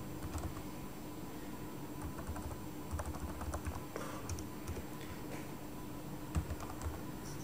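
Computer keyboard being typed on: faint, irregular key clicks in small clusters as text in a form field is deleted and retyped.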